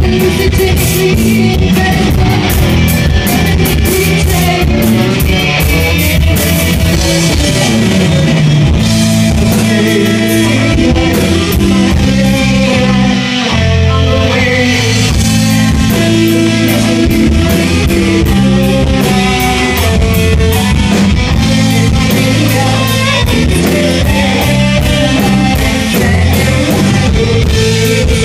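Rock band playing live and loud: electric guitars, bass guitar and drum kit with cymbals.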